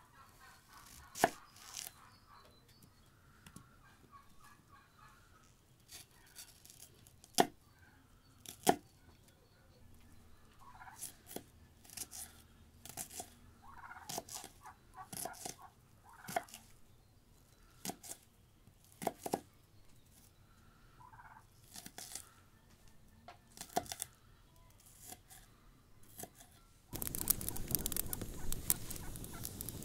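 Large kitchen knife chopping an onion on a wooden cutting board: irregular sharp knocks, with hens clucking faintly in the background. About 27 s in, this gives way to a wood fire crackling and hissing.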